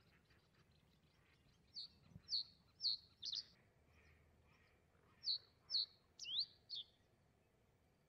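Reed bunting singing: two short phrases of four or five high, sharp chirped notes each, the second phrase with a quick rising slurred note near its end.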